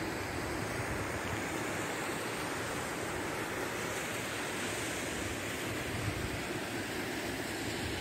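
Steady rush of flowing water from the river and falls, with wind rumbling on the microphone.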